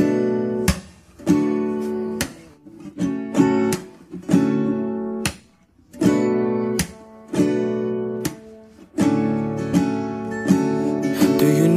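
Music: acoustic guitar strumming chords, each chord left to ring and fade before the next strum, with short sharp strokes between some of them.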